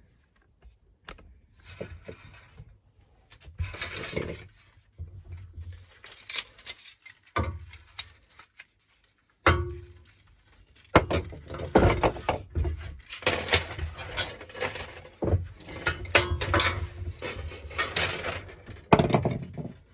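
Parts of a lawnmower's recoil pull-starter being handled: irregular clinks, rattles and knocks, with a sharp knock about halfway through and busier clattering after that.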